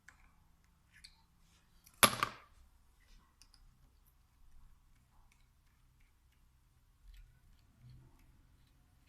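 One sharp knock about two seconds in, amid faint scattered clicks of tools and small parts of a diesel injection pump being handled.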